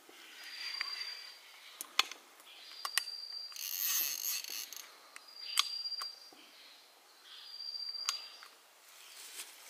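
Semi-automatic mechanical slingshot rifle being cocked by hand, stroke after stroke, about every two and a half seconds. Each stroke is a stretch of mechanical noise with sharp clicks.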